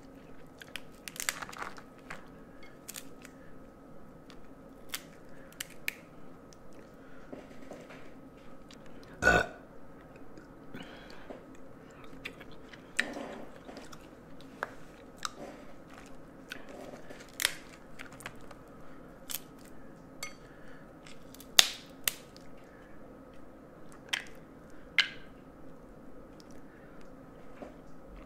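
Close-miked mukbang eating of snow crab legs and shrimp: chewing and biting with wet mouth sounds, scattered with sharp cracks and clicks, the loudest about twenty-one seconds in. One longer, deeper sound about nine seconds in.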